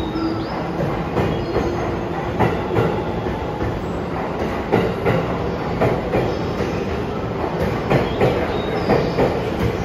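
JR East 651 series electric train pulling out of the platform and rolling past close by. Its wheels click over the rail joints, the clicks coming faster as it gathers speed, with a few brief high wheel squeals.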